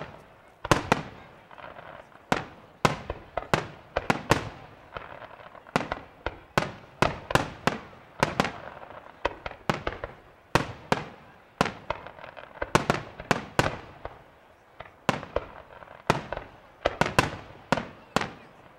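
Professional fireworks display: aerial shells and ground-fired effects going off as sharp bangs in quick, irregular succession, several a second at times, each trailing off in echo.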